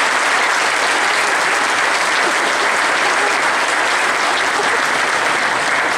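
An audience applauding: dense, even clapping at a steady loud level.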